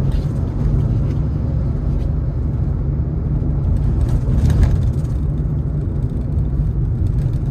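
Car engine and road noise heard from inside the cabin while overtaking: a steady low rumble, with a brief louder rush about four and a half seconds in.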